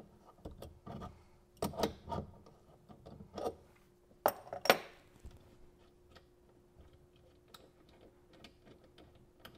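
Light metallic clicks and clinks of a braided stainless steel water line's nut being worked loose and pulled off the brass fitting on a shutoff valve, with two sharper clinks about halfway through. After that only a faint steady hum.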